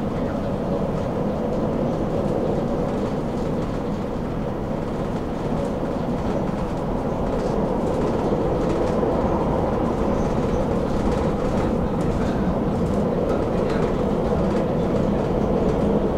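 Tram running along the track: a steady rumble of wheels on rails with a steady hum, growing slightly louder toward the end.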